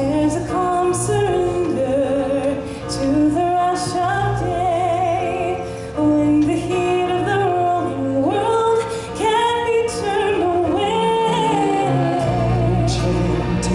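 Live stage-show music with a woman singing a slow melody, her voice wavering and sliding between notes over a steady instrumental accompaniment.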